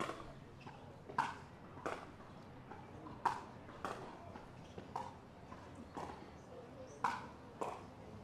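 Pickleball paddles striking a plastic ball: a string of hollow, ringing pocks, about nine of them, spaced irregularly around one a second.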